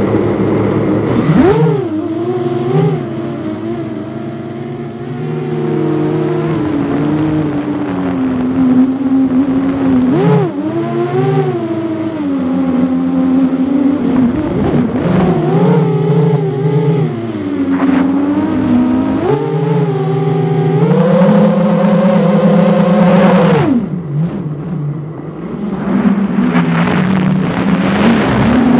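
Quadcopter's four T-Motor 2206 2000kv brushless motors spinning 6-inch bi-blade props, heard from on board: a buzzing whine whose pitch keeps rising and falling with the throttle. It drops away briefly about 24 seconds in, then builds again.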